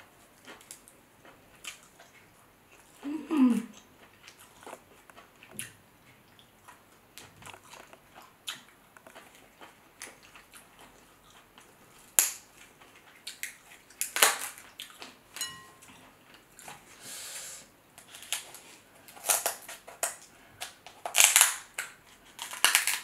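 King crab leg shell cracking and crunching as it is pried apart by hand and snipped with kitchen scissors: scattered sharp cracks, growing into loud crunching bursts in the second half. The shell is hard to cut. A short low hum, falling in pitch, comes a few seconds in.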